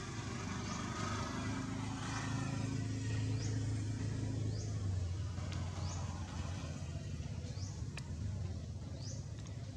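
Low, steady rumble of a motor vehicle's engine running nearby, swelling a few seconds in and then easing. Short, high rising chirps repeat about once a second over it, with a single sharp click near the end.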